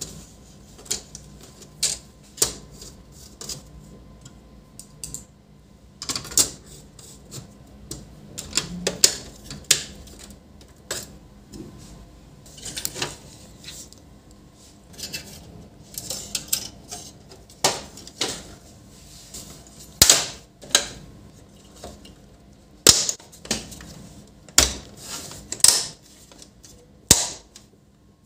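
Irregular sharp clicks and knocks of an HP LaserJet printer's plastic and sheet-metal parts being handled and fitted back together during reassembly. The clicks are most frequent and loudest in the second half.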